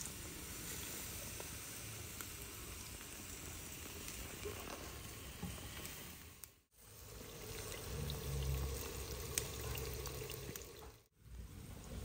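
Food sizzling as it cooks, a steady crackling hiss, broken by two abrupt cuts; a low rumble joins in the middle section.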